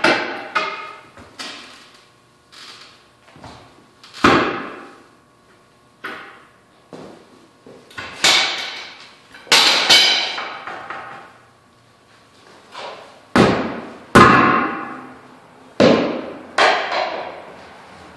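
Steel tire-mounting tools clanking against a steel backhoe wheel rim during manual tire mounting: about fifteen sharp metal strikes at irregular intervals, each ringing out briefly.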